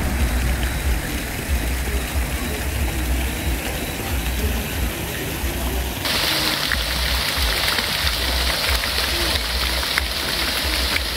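Fountain jets splashing into a pool: a steady hiss of falling water that starts abruptly about halfway through. Under it, and before it, an irregular low rumble.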